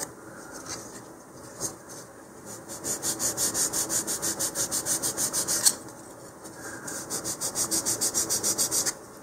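Sanding block rubbing back and forth on the edge of a balsa wood fin, tapering it toward a knife edge. After a quieter start come two runs of quick, even strokes, about seven a second, with a short pause between.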